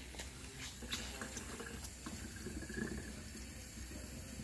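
Water running from a gooseneck faucet into a steel sink, with a few light clicks in the first second.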